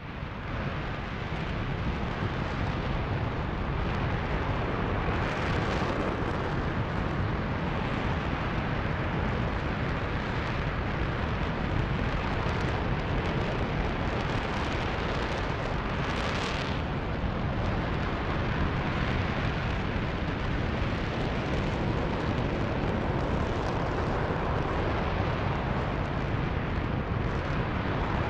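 RS-25 liquid-hydrogen/liquid-oxygen rocket engine in a static test firing. It starts up sharply and within a couple of seconds settles into a loud, steady noise that holds at full power.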